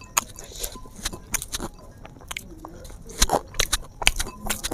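A person eating river snails with rice: chewing, with an irregular run of short sharp clicks and smacks, loudest a little past the middle.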